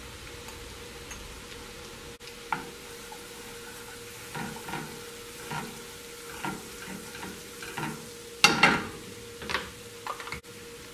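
Garlic butter sizzling in a frying pan as it is stirred with a spatula: a steady hiss with a series of short scraping strokes against the pan. The strokes are loudest about three quarters of the way through.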